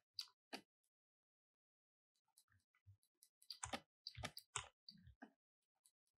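Near silence with faint clicks from computer input devices: a couple right at the start, then a cluster of clicks and light knocks from about three and a half to five seconds in.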